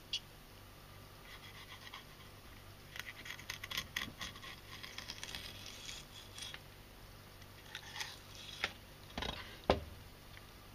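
A kitchen knife cutting into a mackerel on a wooden cutting board as the fish is filleted into three pieces: bursts of scratching strokes from the blade through flesh and bone. Two sharp knocks of the knife on the board come near the end.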